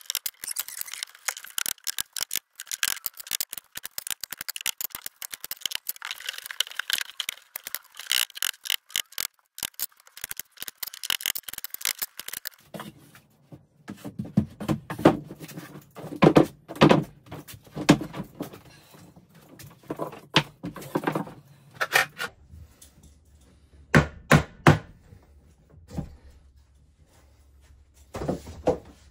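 Wooden tongue-and-groove ceiling boards being fitted and fastened: a fast run of clicks and clatter for the first twelve seconds or so, then a series of separate heavy knocks and thunks.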